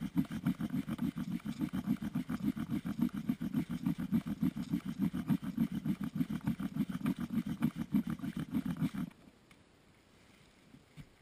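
Bow-drill fire-making: a wooden spindle driven back and forth by a bow, grinding in the socket of a wooden hearth board in a fast, even rhythm of strokes. The drilling is working up an ember, and it stops about nine seconds in.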